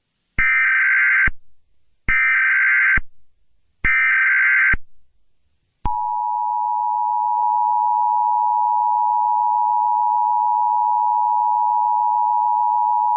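Emergency Alert System tones: three short bursts of the digital SAME header, each a harsh warbling data screech just under a second long, then, about six seconds in, the steady two-tone EAS attention signal.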